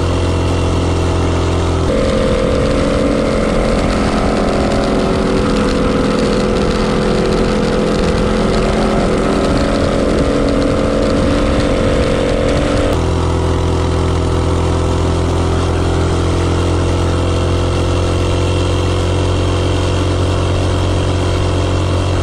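Minibike's 4.8 HP 179cc LCT Storm Force single-cylinder snowblower engine held at full throttle on a top-speed run at about 42–44 mph: a loud, steady engine drone with wind rush. From about two seconds in until about thirteen seconds the tone turns rougher and noisier, then steadies again.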